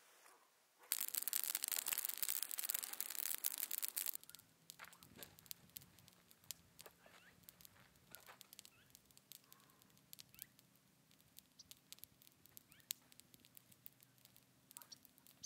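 Dry brush pile catching fire: about a second in, a loud, dense crackling flares for about three seconds, then drops to scattered pops and crackles over a faint, steady low hum.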